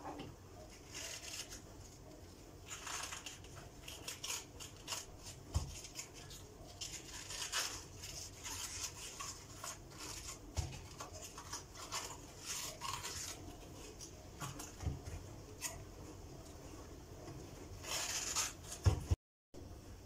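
Crisp crackling and squeaking of leaves being pulled off a small head of white cabbage by hand, with a few soft knocks on a wooden cutting board.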